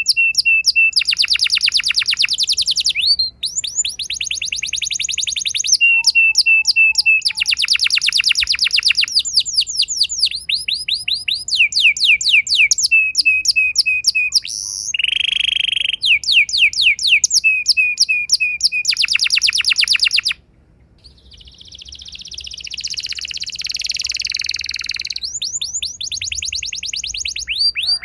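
Domestic canary singing a long, unbroken song of fast trills and rolled repeated notes, with a harsh buzzy note about fifteen seconds in. The song breaks briefly around twenty seconds, then a softer warbling passage builds back up.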